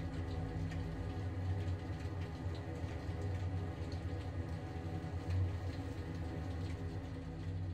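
A machine running steadily with an even, low hum.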